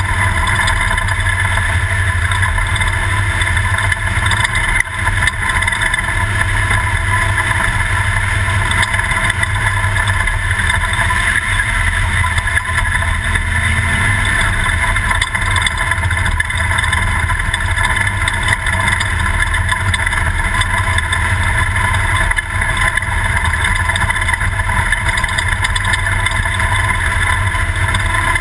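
Toyota off-road race truck driving: a loud, steady engine drone mixed with road noise, unbroken throughout.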